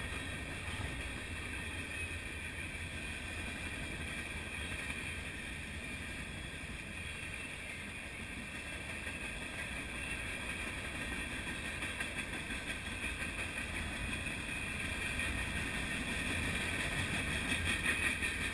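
Freight train cars rolling past at close range: a steady rumble of steel wheels on rail with a steady high whine over it. It grows louder and pulses quickly in the last few seconds as the final autorack cars go by.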